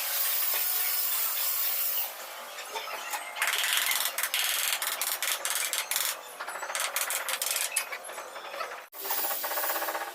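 Tools working on stone and tile: bursts of grinding and scraping, some steady and some broken into separate strokes.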